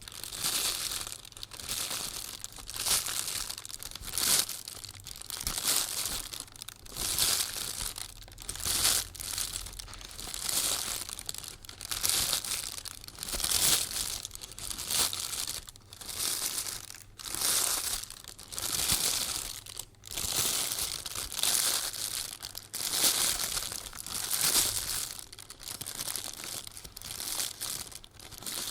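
Footsteps walking on dry leaves, each step a crackling crunch of the leaves underfoot, at a slow, even pace of about one step every second and a half.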